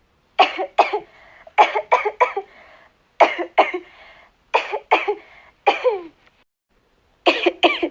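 A girl coughing repeatedly in short fits of one to three coughs, about a dozen coughs in all, with breathy noise after several of the fits.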